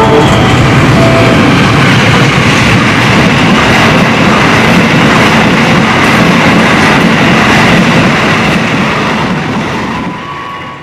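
Passenger train behind a diesel locomotive running straight through a station without stopping. There is a loud, steady rumble and clatter of wheels on rails as the stainless-steel coaches pass close by, and it tapers off near the end.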